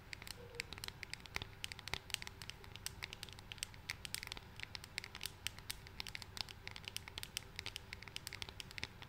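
Fingertips and nails tapping rapidly and irregularly on a small pink makeup package, several light clicks a second, close to the microphone.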